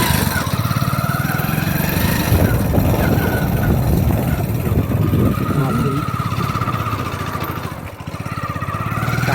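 Royal Enfield Himalayan motorcycle engine running under load on a rough dirt track. The engine note dips briefly about eight seconds in, then picks up again.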